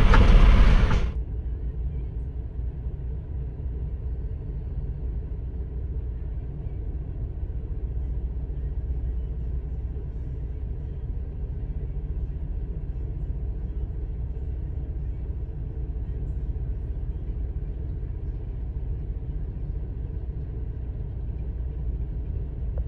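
Steady low rumble of a semi truck's engine and road noise heard from inside the cab. A louder rush of noise cuts off about a second in, and the rumble runs on evenly after it.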